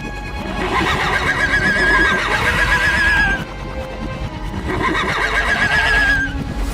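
A horse whinnying twice, each call long and quavering and trailing off at the end, over steady background music.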